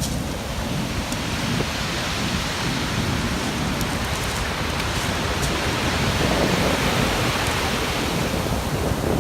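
Ocean surf: a continuous rush of waves washing in over a low rumble. It builds after a couple of seconds and eases off near the end.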